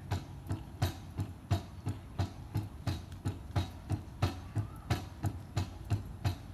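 Outdoor park elliptical cross-trainer knocking rhythmically as it is pedalled, about three knocks a second, each with a low thud. It is noisy enough to be likened to a grinding mill.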